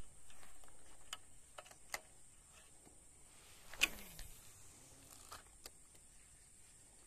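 Scattered small clicks and taps, with one louder knock about four seconds in followed by a brief falling tone, over a steady high-pitched insect drone.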